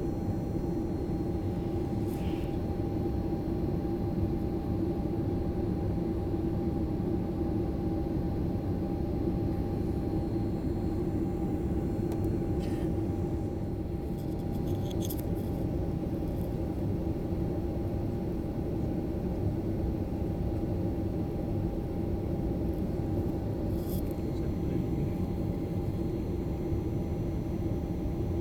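Steady roar of a jet airliner's engines and rushing air heard from inside the passenger cabin, with a constant hum and a few faint clicks.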